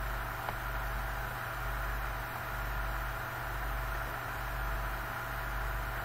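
Steady background hiss with a low hum underneath, with a single faint click about half a second in.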